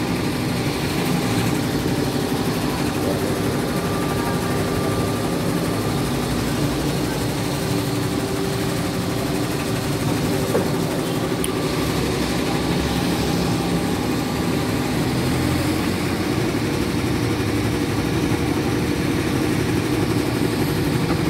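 Two-head CNY computerized embroidery machine running in production, its needles stitching with a steady, rapid mechanical chatter.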